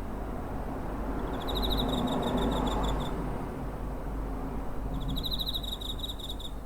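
A cricket singing two chirping trills of rapid pulses, each about one and a half to two seconds long, the second starting about five seconds in. Under them is a steady low background hum, with a low rumble that swells and fades around the first trill.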